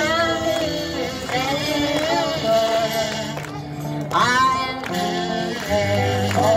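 Live band music: electric guitar and drums, with a singing voice over held low notes.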